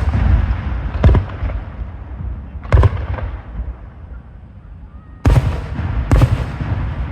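Aerial fireworks shells bursting: sharp booms about a second in, near three seconds, and twice in quick succession past five seconds, each trailing off in a low rumble.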